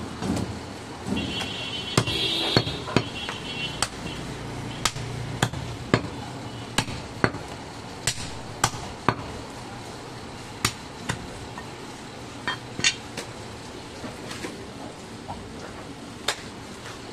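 Heavy butcher's knife chopping goat meat and bone on a wooden log chopping block: sharp, irregularly spaced chops, often one or two a second, with a few short pauses.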